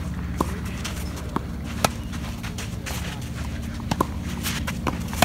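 Tennis rally: about six sharp pops of the racket striking the ball and the ball bouncing on the hard court, at uneven gaps, the last one the loudest. A steady low hum runs underneath.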